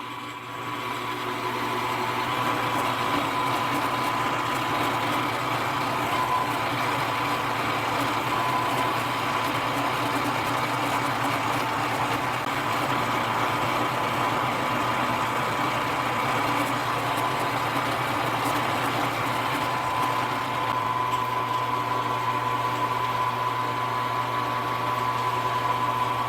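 Milling machine spindle motor running steadily with a high whine and a low hum, just after starting up.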